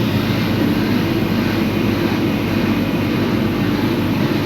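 Steady low droning noise, even and unbroken, with no distinct events.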